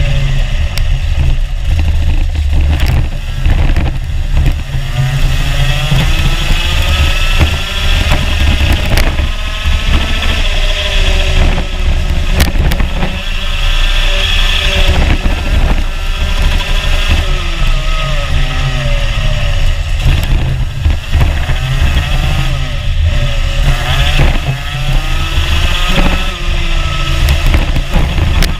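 Rotax Junior Max 125cc two-stroke kart engine at racing speed, heard on board the kart. Its revs climb in long rising whines and drop away again, over and over, through the circuit's straights and corners.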